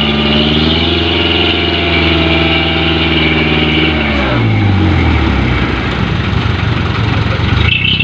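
Dump truck's diesel engine held at raised revs to drive the hydraulic hoist as the loaded bed tips up, then dropping back to a lower, rougher run about four seconds in.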